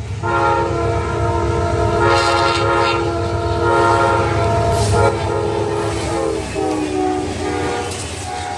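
Multi-chime air horn of an approaching Amtrak diesel locomotive, sounding a long chord with brief breaks, over the low rumble of the train; the horn's pitch drops slightly about two-thirds of the way through as the train passes.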